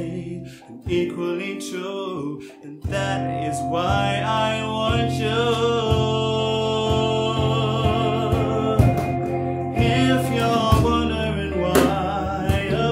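Live acoustic band playing: a male lead voice singing over guitar, bass and cajon. The opening is sparse, and the full band with the cajon strokes comes in about three seconds in.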